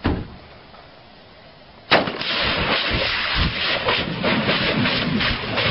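A short sharp bang, then about two seconds in a loud blast as a kerosene can burning on the water goes up in a fireball, followed by the steady rush of the flames with sharp crackles.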